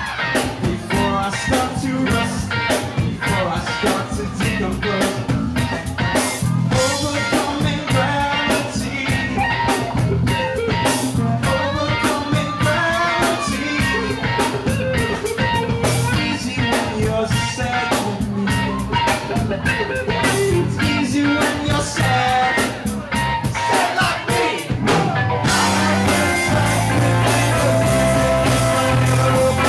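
Live rock band playing electric guitars and a drum kit. About 25 seconds in, the steady drum strokes give way to a fuller passage of held chords.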